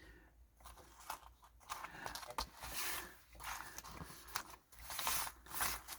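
Irregular small snips, crunches and scrapes of hand work on a freshly soldered circuit-board kit.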